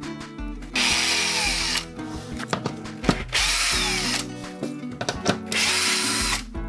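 Power drill running in three short bursts of about a second each, over background music.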